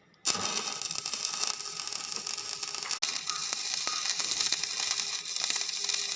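Electric arc welding on a mild steel base plate: a steady crackle of the arc that starts suddenly just after the beginning and breaks off for an instant about three seconds in before the arc is struck again.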